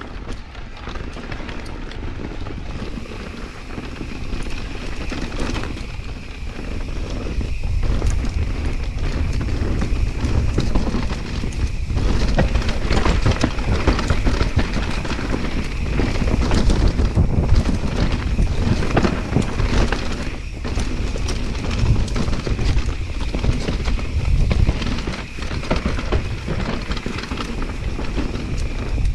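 Electric mountain bike riding down a rough, stony dirt trail: wind buffeting the microphone over a constant rattle, with frequent knocks and clatter from the bike over the bumps. It gets louder about eight seconds in as the ride speeds up.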